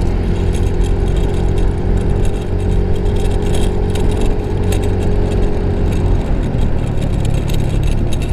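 Yamaha Mio i 125 scooter's single-cylinder engine running steadily while riding, with rushing wind over the microphone. The engine tone eases off about six seconds in.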